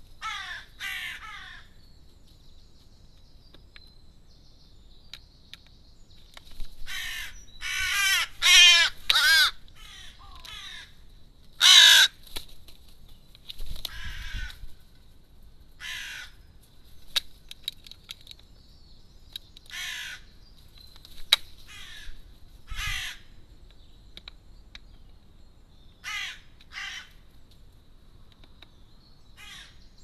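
Crow cawing in separate harsh calls: a couple at the start, a quick run of four loud caws about a quarter of the way in, the loudest soon after, then single caws every few seconds until near the end.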